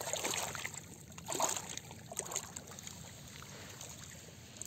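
Small waves lapping and trickling faintly against a rocky lakeshore, with a few soft scuffs in the first couple of seconds.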